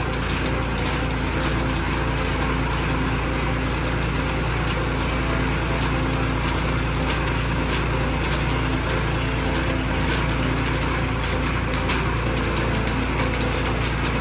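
Tractor engine running steadily to drive a tractor-mounted earth auger boring a hole in soil, with an irregular clicking rattle from the auger's gears and drive.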